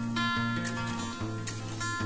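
Background music of plucked and strummed guitar, with held notes that change every half second or so.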